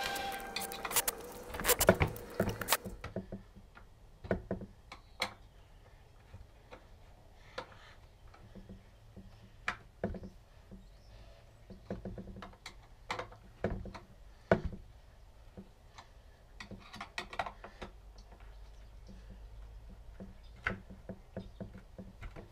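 Irregular clicks and knocks of wooden pieces and tools being handled, the loudest knock about two seconds in, over a faint low hum.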